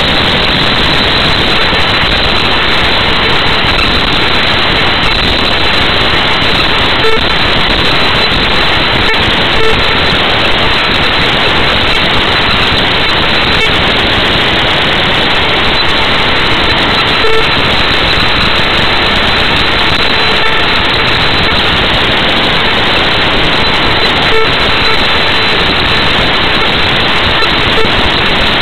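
Loud, steady static hiss from a degraded TV recording, with no speech in it and a few faint short blips scattered through it.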